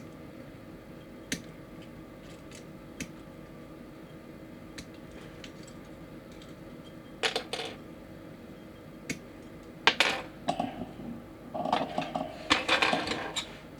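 Plastic model-kit parts being clipped off their runners with hobby nippers: sharp single snips, then louder bursts of small hard plastic parts clicking and clattering while they are handled, busiest near the end.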